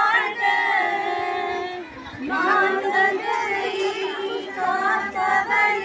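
A group of women and children singing together in unison, holding long notes, with a short break about two seconds in.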